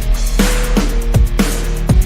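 Electronic background music with a steady beat and deep, falling bass kicks.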